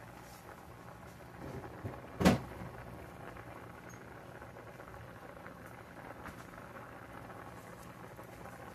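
Saucepan of green beans at a rolling boil on an electric coil burner, a steady bubbling hiss. A single sharp knock about two seconds in stands out above it, just after a few softer taps.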